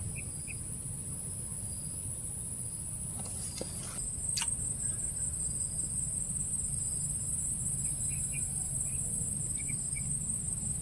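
Crickets chirping in a steady, high-pitched, pulsing chorus over a low rumble, with one sharp click about four seconds in.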